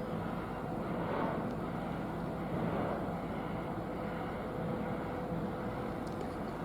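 Steady low rumble of distant engines, with a faint steady hum through it.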